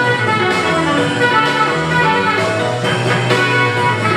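Loud instrumental music with a steady beat, playing for a breakdance battle.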